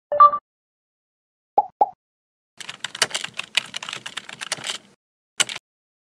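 Computer keyboard typing: a rapid run of key clicks lasting about two seconds, then one last key strike near the end. It is preceded by a short two-note blip at the very start and two quick clicks a little later.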